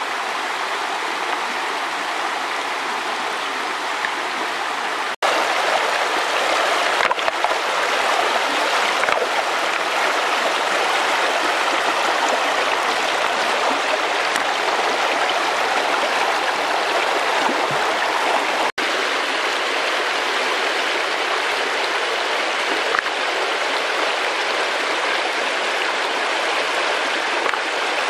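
Shallow, muddy river water rushing over and between a line of stacked stones, a steady splashing flow. The sound cuts out briefly twice, about 5 s and 19 s in, and is louder after the first gap.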